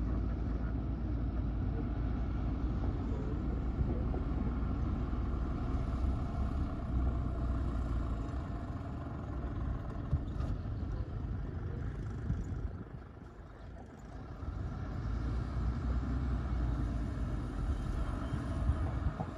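Heavy diesel earthmoving machinery running with a steady low rumble. It drops away briefly about two-thirds of the way through, then comes back up.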